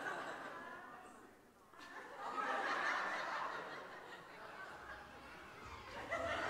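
An audience laughing and chuckling softly; the laughter dies down briefly about a second and a half in, then swells again.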